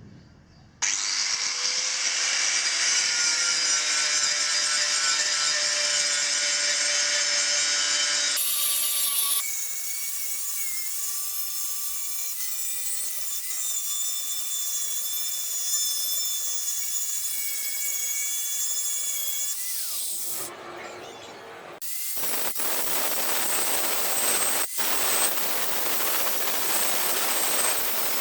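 Electric power tool running against the steel of a rusty hoe in three separate passes, removing rust. The first two passes have a steady whine whose pitch differs from pass to pass. The last, about 22 seconds in, is rougher and noisier, with a few sharp clicks.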